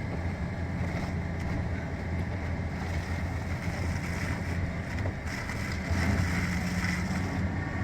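Ford Ranger pickup driving through snow: a steady low engine drone with road and wind noise.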